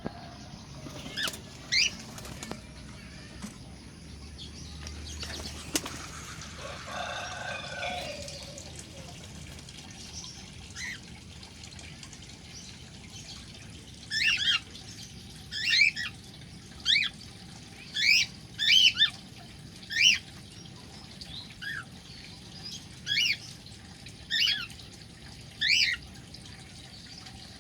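Cockatiels calling: short, high chirps, a few early on and then a steady run of about one a second through the second half.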